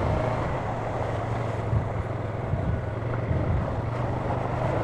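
ATV engine running steadily at low speed, with wind buffeting the microphone.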